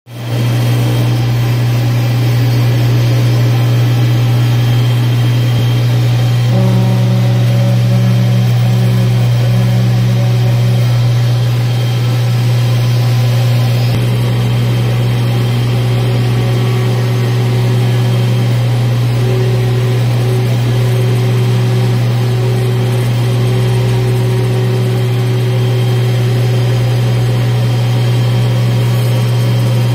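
Digital flatbed CNC cutting machine running as it cuts a printed foam board: a steady, loud low hum, with fainter higher whines that come and go as the cutting head moves.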